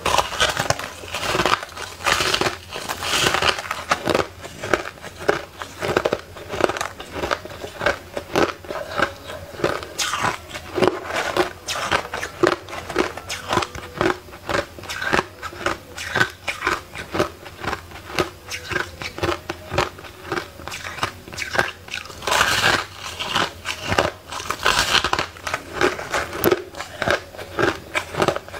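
Close-miked crunching of crushed ice being bitten and chewed: a dense run of sharp crunches, with a couple of louder bites about three quarters of the way through.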